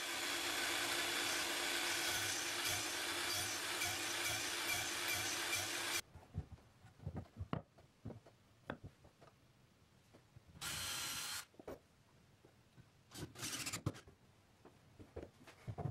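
Mitre saw running and cutting a notch into a timber stretcher for about six seconds, then stopping abruptly. After that come scattered light knocks and taps of wooden parts being handled and fitted, with a short whirring burst about eleven seconds in.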